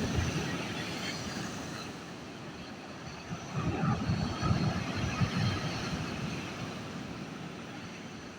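Rough sea surf: the wash of a breaking wave dying away, then another wave surging in about three seconds in and fading again.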